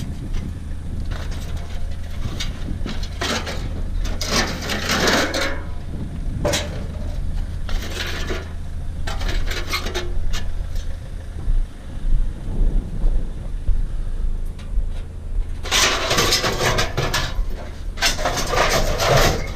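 Scrap metal being handled and shifted, clattering and scraping in irregular bursts, loudest in two spells near the end, over a steady low hum.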